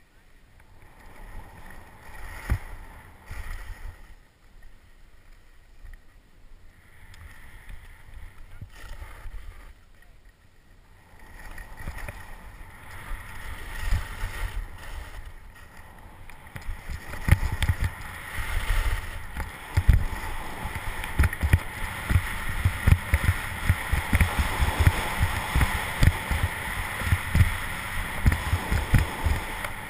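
Skis scraping and chattering over choppy, tracked-up snow during a fast downhill ski run, with irregular thumps as the skis hit bumps and a rush of wind on the microphone. Quieter at first, the scraping and thumping grow louder and busier from about halfway.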